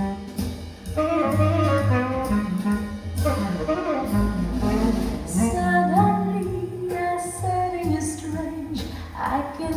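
Instrumental break of a jazz ballad: a lead horn melody, likely saxophone, over bass and band accompaniment.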